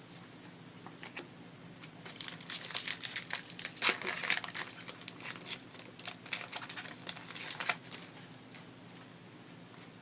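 Card pack's foil wrapper crinkling as it is handled, a dense crackle from about two seconds in that stops about two seconds before the end.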